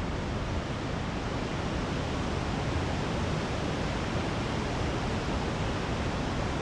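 Large waterfall rushing, a steady dense wash of noise with a strong low end.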